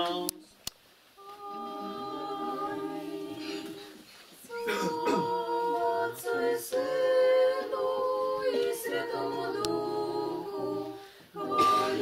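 A small group of voices singing unaccompanied Orthodox liturgical chant in sustained chords, phrase by phrase, with short breaks about a second in, around four seconds in and just before the end.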